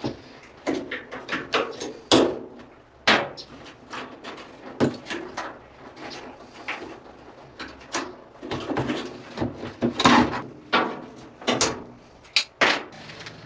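Irregular knocks, clicks and clatter of hands and tools handling washing-machine parts, with several sharper thuds.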